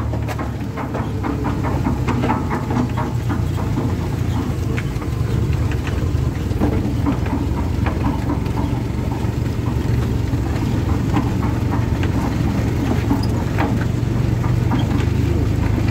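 A towed homemade concrete mixer rattling and clattering over an asphalt road, over the steady low drone of the towing vehicle and its tyres.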